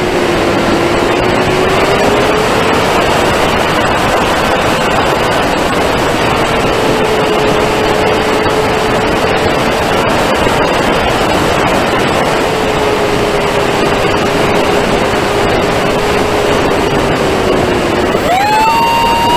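Emax 2205 2600kv brushless motor and propeller on a Wing Wing Z-84 flying wing, heard from the onboard camera: a steady low whine at part throttle under heavy wind rush. Near the end the motor speeds up and the whine jumps sharply higher.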